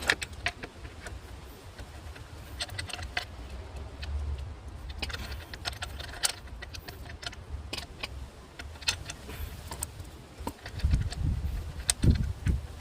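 Metal tools and engine parts clinking and tapping in short, irregular clicks, with a few heavier knocks near the end, over a low background rumble.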